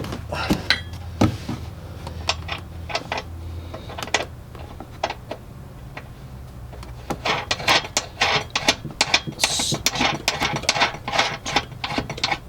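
Metal hardware and hand tools clicking and clinking while a nut is worked onto a tow hitch bolt under an SUV. Scattered knocks come over a low steady hum at first, then a busy run of rapid clicks and rattles from about halfway on.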